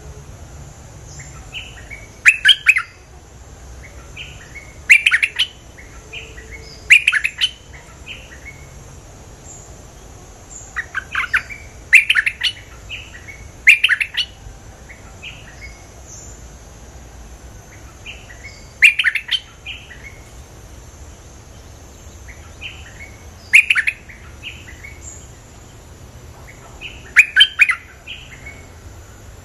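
Caged bulbul calling in short, loud bursts of quick chirps every few seconds, with fainter chirps answering in between. A steady high insect hum runs underneath.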